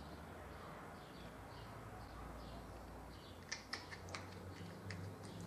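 Faint quiet with light bird chirps in the background, and a few small clicks about three and a half to four seconds in from a plastic tube of food-colouring gel being handled.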